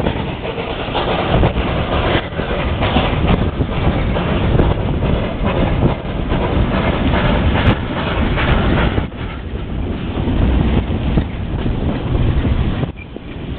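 Steam tram running along its track, heard from its open top deck: a steady rumble with the clatter of wheels over the rails. It gets quieter near the end.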